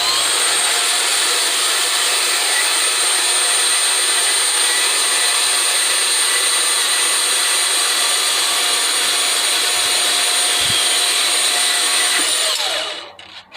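Hercules 20V brushless cordless deep cut band saw running at speed setting 6 and cutting through wood, a loud steady whine. About twelve and a half seconds in the trigger is released and the motor winds down, with a short click just after.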